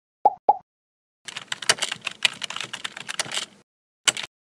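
Computer keyboard typing sound effect: a quick, dense run of key clicks lasting about two seconds. Two short pops come just before it, and a single click follows near the end.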